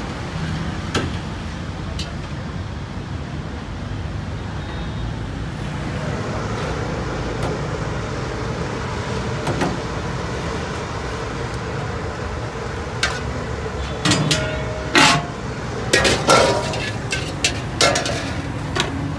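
Steady roadside traffic noise, then, in the last few seconds, a metal ladle clanking sharply against a steel wok several times.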